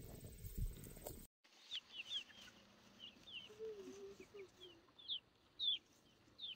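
Chickens foraging in tall grass: a string of short, high chirps and peeps, with one low, wavering hen call near the middle. In the first second, before the chickens, there is a faint low rustle of goats grazing.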